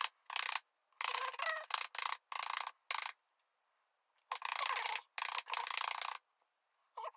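Spatula stirring and scraping freshly wetted casting powder in a mixing bowl, in short irregular scratchy strokes with a pause partway through.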